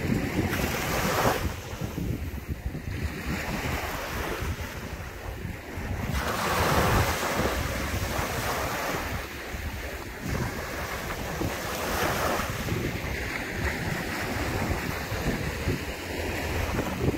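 Ocean waves rolling in and washing up, a continuous rush of water that swells louder every five or six seconds.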